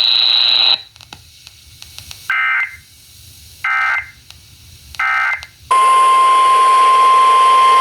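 NOAA Weather Radio EAS activation: three short warbling SAME header data bursts about 1.3 s apart, then the steady 1050 Hz warning alarm tone starts about six seconds in, over radio hiss.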